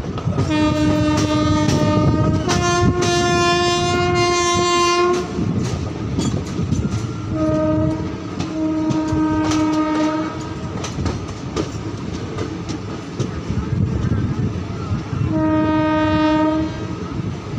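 Train's two-tone locomotive horn sounding from up ahead while riding in a coach: a long blast stepping straight up to a higher note, two shorter blasts a few seconds later, and one more near the end. Steady wheel rumble and clickety-clack of the rail joints underneath.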